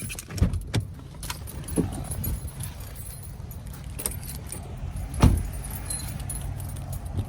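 Light metallic jingling and rattling with several sharp knocks, the loudest about five seconds in, over a steady low rumble.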